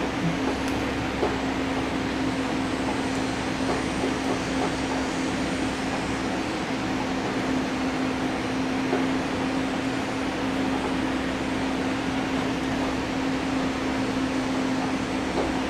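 Electric box fan running steadily: an even rushing hum with one low tone held throughout.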